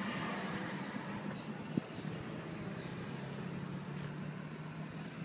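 Several short, high bird chirps over a steady low engine hum.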